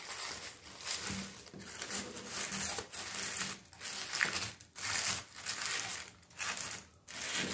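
Tissue paper rustling and crinkling in irregular bursts as hands press and smooth it into a cardstock box.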